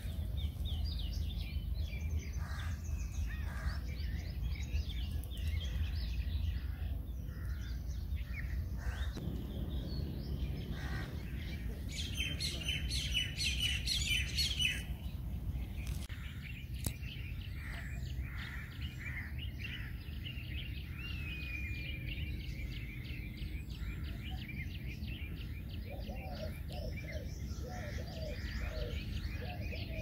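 Several songbirds chirping and singing, with a burst of rapid chirping about halfway through and a whistled glide a little later, over a steady low rumble of outdoor background noise.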